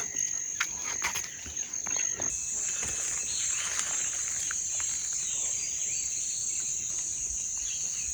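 Insects in the forest making a continuous, high-pitched chorus; it grows fuller about two seconds in. A few faint clicks come early on.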